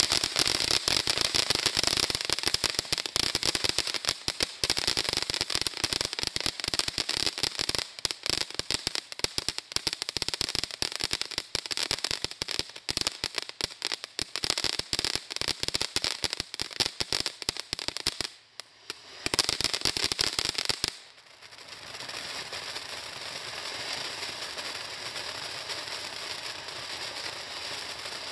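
Cannon Sea Creatures firework fountain burning: a dense, fast crackling of exploding sparks, with a brief break about 18 seconds in, then from about 21 seconds a steady sizzling hiss as it throws a golden spray.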